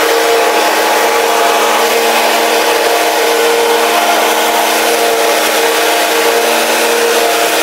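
Riding lawn mower engine running steadily while mowing grass: a loud, even drone that holds one pitch.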